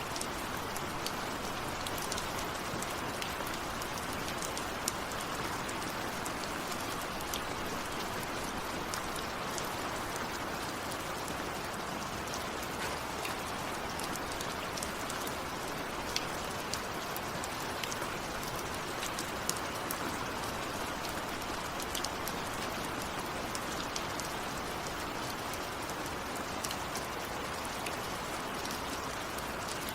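Steady heavy rain falling, with the close, sharp taps of individual drops striking a surface scattered through it.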